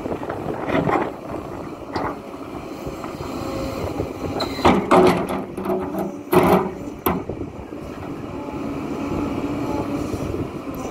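Hidromek HMK 230LC excavator's diesel engine and hydraulics running steadily while working, with several loud knocks and scrapes near the middle.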